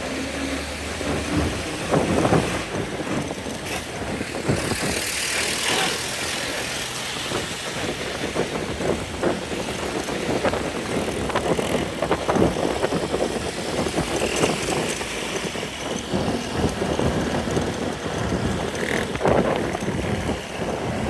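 Motor vehicle engine and road traffic noise, continuous, with many short knocks and rattles over a steady rumble.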